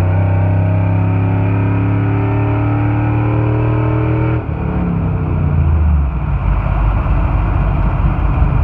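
Pickup truck's engine accelerating hard through a new side-exit exhaust, heard from inside the cab. The exhaust note climbs steadily until the automatic transmission upshifts about four and a half seconds in, then the revs drop and the sound settles into a steady cruising drone with road noise.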